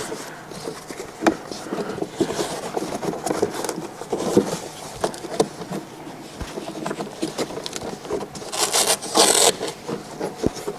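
Saddlebag lid cover being pressed onto Velcro strips and stretched over a hard saddlebag lid: scraping and rubbing with small clicks, and a louder scratchy rasp about nine seconds in.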